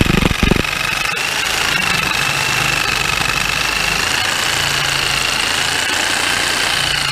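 Jigsaw cutting slots in a steel mounting plate: a steady high motor whine over a low rattling hum, with a few sharp knocks in the first half second as the blade bites.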